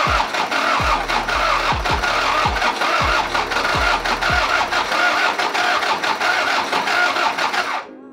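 Toyota 1KZ-TE 3.0-litre four-cylinder turbodiesel running with a steady, loud diesel clatter; the owner says the engine has low compression and needs new piston rings. A deep thumping beat repeats about every two-thirds of a second through the first half, and the sound cuts off abruptly near the end.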